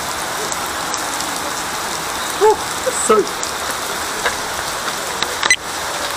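Heavy rain falling steadily on a pond and wet ground, an even hiss. Two short pitched sounds cut through it about two and a half and three seconds in.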